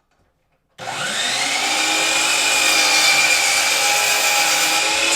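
Electric power tool motor switched on about a second in: it spins up with a rising whine, runs steadily at full speed, then is switched off near the end and winds down with a falling whine.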